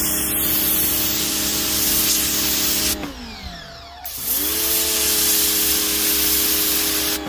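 A PowRyte 3800R electric pressure washer running: the steady hum of its motor and pump under the hiss of a zero-degree nozzle jet blasting concrete. About three seconds in the trigger is released, the spray stops and the motor winds down in pitch. About a second later it spins back up and the spray resumes, then the trigger is released again at the end.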